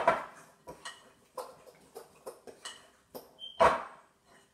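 A utensil knocking and scraping against a glass mixing bowl in irregular strokes as flour is stirred into sticky biscuit dough, the loudest knock about three and a half seconds in.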